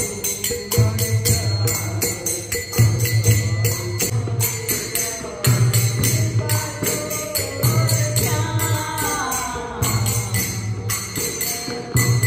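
Devotional kirtan: a barrel drum (mridang) beaten in a slow, steady rhythm of deep strokes, with jingling percussion and hand clapping. A voice sings along in the second half.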